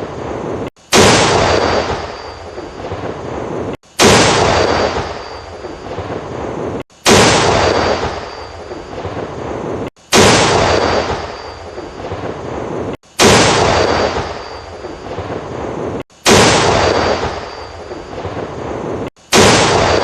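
War tank's main gun firing, the same shot repeated seven times about every three seconds, each a sudden report trailing off into a long fading echo. A brief cut to silence comes just before each shot.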